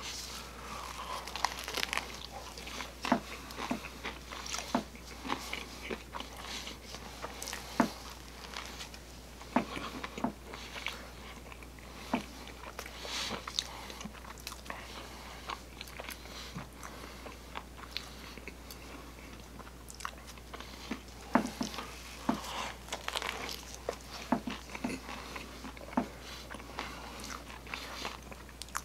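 Close-up biting and chewing of a folded pizza slice: crunchy bites into the crust and wet mouth clicks at irregular intervals, with a few sharper, louder crunches. A steady low hum runs underneath.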